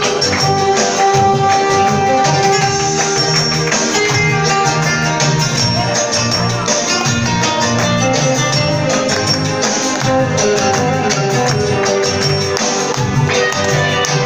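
Instrumental passage of a rumba backing track: guitar and tambourine over a steady beat.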